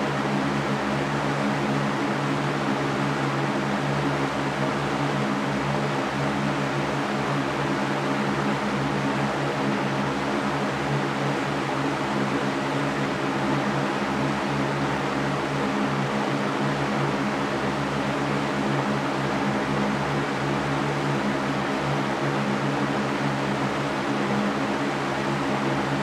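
Large metal-grilled Mastercraft floor fan running steadily: an even rush of air over a constant low motor hum.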